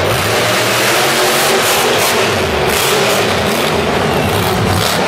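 Monster truck engine revving hard under full throttle as the truck accelerates and launches into a jump.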